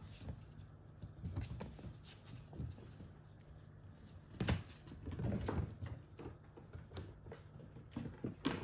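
Kittens scampering and scuffling on a laminate floor: scattered light taps and patters of small paws, with a denser flurry about halfway through and again near the end, over a faint steady hum.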